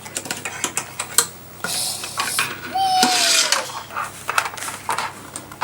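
Dishes and cutlery clinking and clattering, with two brief hissing noises about two and three seconds in.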